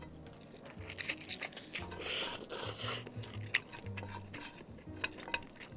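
Close-up eating sounds of a person slurping and chewing instant fried noodles: wet chewing clicks and lip smacks, with a longer slurp about two seconds in. Background music with a bass line runs underneath.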